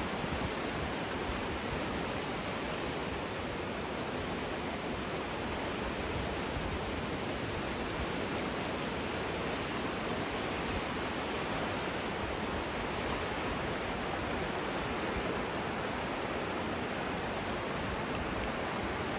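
Indus River in flood, fast muddy water rushing past in a steady, unbroken wash of noise.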